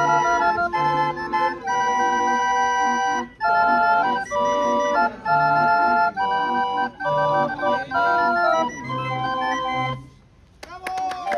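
Hand-cranked street organ (barrel organ) playing a tune in pipe notes over a recurring bass note. About ten seconds in the music breaks off. After a short gap and a few clicks it starts up again.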